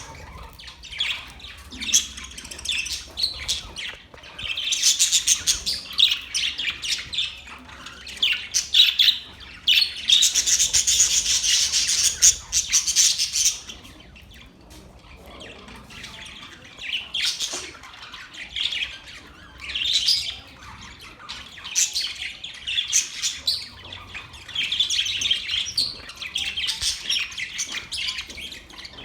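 A flock of budgerigars chirping and chattering in rapid, overlapping high calls. There is a busy stretch of near-continuous chatter in the first half, then a short lull before the calls pick up again.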